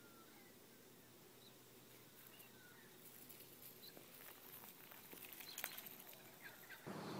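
Near silence: faint outdoor ambience with a few short, faint high chirps, and light scuffling ticks that grow a little louder in the second half.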